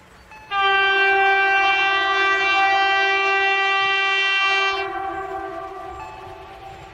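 Horn of electric locomotive 594 015, running light, sounding one long steady blast of about four seconds that starts abruptly and then fades away over a couple of seconds.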